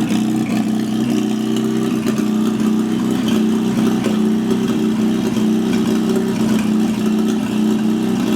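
GAZ-69's four-cylinder engine, freshly rebuilt, running steadily at an even speed.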